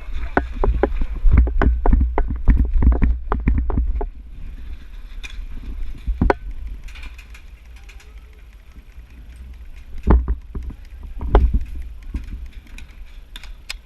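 A quick run of irregular knocks and thumps over a low rumble for about four seconds, then a few scattered single knocks.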